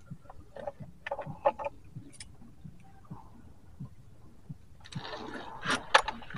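Light clicks and knocks from handling a fish lip grip and gear in a wooden boat, with a brief scuffle of rustling and sharper knocks about five seconds in.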